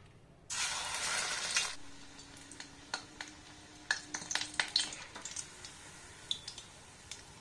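Egg-dipped bread slice for French toast frying in oil in a steel kadai. There is a loud sizzle for about a second just after the slice goes in, then a quieter sizzle with a metal spatula tapping and scraping against the pan.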